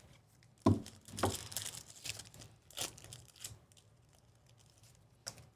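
Foil wrapper of a Panini basketball card pack being torn open and crinkled in the hands, in a run of short crinkly rips. Under a second in there is a sharp knock as a stack of cards is set down on the table, and a short click near the end.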